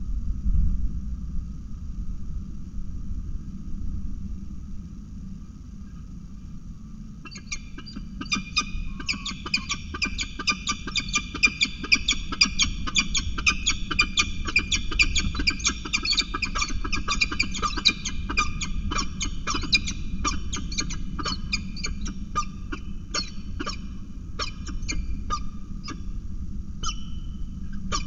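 Peregrine falcon calling in a rapid run of harsh, repeated notes. The calls start about seven seconds in and thin to scattered notes over the last third. Strong wind rumbles on the microphone underneath.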